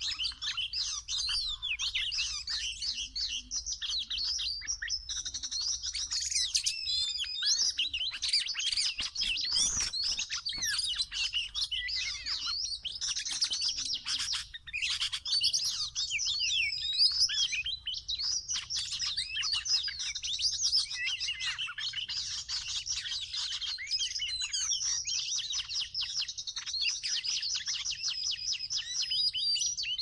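Oriental magpie-robin singing: a continuous run of varied whistles, warbles and chirps.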